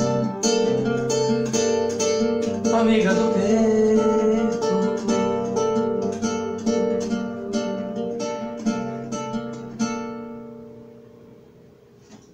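Nylon-string classical guitar playing a closing instrumental passage of plucked notes and chords, at a few notes a second; about ten seconds in the playing stops and the last notes ring away.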